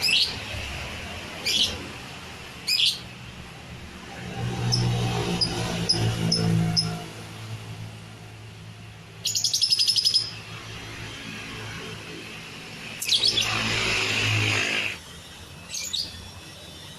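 Lovebird calling: short sharp chirps, a rapid rattling trill about nine seconds in, and a long harsh screech near the end, over a low hum in the middle.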